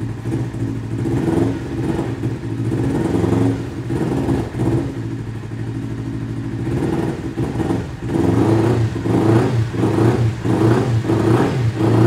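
Kawasaki Ninja 300's 300 cc parallel-twin engine running on a cold start through an aftermarket slip-on exhaust, blipped repeatedly to around 3,000–4,000 rpm. The short revs come quicker and louder in the second half.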